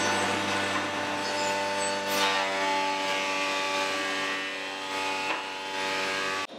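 Woodworking surface planer running with a steady hum. A board being fed across its cutter makes a rasping swell about two seconds in and a shorter one near five seconds. The sound cuts off suddenly just before the end.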